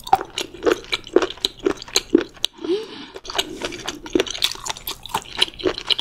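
Close-miked wet chewing and mouth smacks from eating saucy spicy stir-fried octopus with flat glass noodles, a quick run of sharp squishy clicks several times a second.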